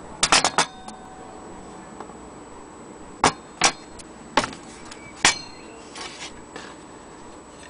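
Brass longcase clock dial being handled and turned over, knocking and clinking against the hands and the surface under it. A quick run of four light knocks comes right at the start, then four single knocks spread across the middle, and softer taps near the end.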